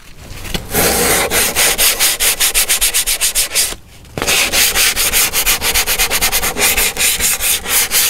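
A sheet of sandpaper rubbed by hand over half-inch plywood in quick back-and-forth strokes, with a brief pause about halfway through. The edges of a plywood box are being smoothed after flush-trimming with a router.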